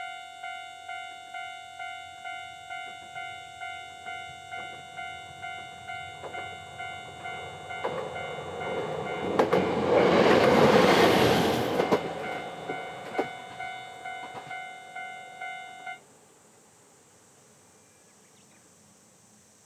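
Level-crossing warning bell ringing about twice a second as a Kyoto Tango Railway KTR800 diesel railcar passes through the middle, its engine and wheels swelling loud with a few sharp clicks over rail joints. The bell cuts off a few seconds before the end.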